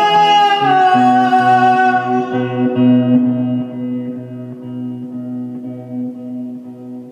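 Song accompaniment: a held sung note ends shortly after the start, then a guitar plays a steady, repeating low note pattern about twice a second that gradually fades.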